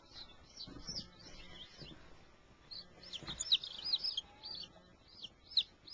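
Day-old chicks peeping: many short, high-pitched peeps, each rising and falling, coming thick and fast, busiest in the second half.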